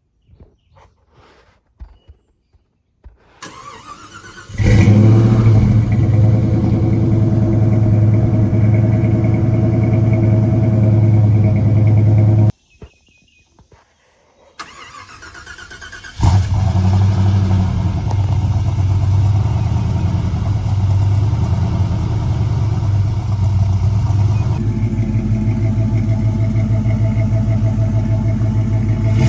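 Jeep Grand Wagoneer's engine running steadily through a newly fitted Dynomax muffler, with a deep, even exhaust note. It comes in about four seconds in, cuts off abruptly around twelve seconds, and returns about sixteen seconds in.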